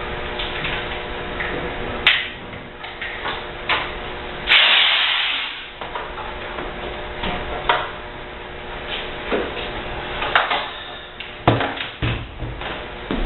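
Dishwasher parts being taken apart by hand: scattered clicks, knocks and clanks of metal and plastic, with one louder hissing scrape lasting about a second, over a steady background hum.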